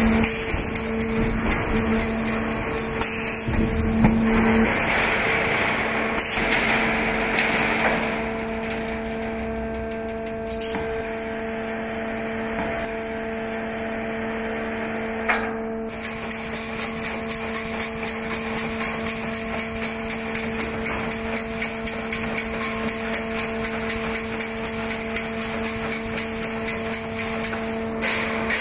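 Schlatter MG700 fence-mesh welding line running: a steady machine hum with repeated mechanical strokes and clanks, pulsing about twice a second in the second half.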